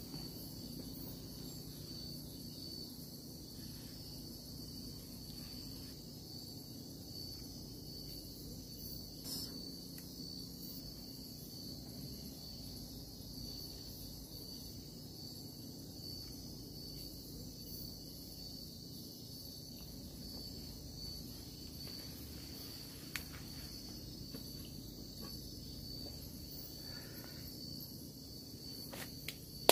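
Night insects chirring steadily in a continuous high-pitched chorus, with a few small clicks or knocks here and there.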